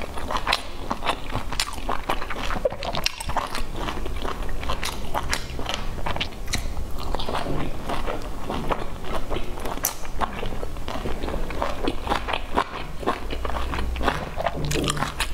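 Close-miked chewing and biting of pan-fried dumplings. Many quick, irregular clicks and smacks come from the mouth throughout.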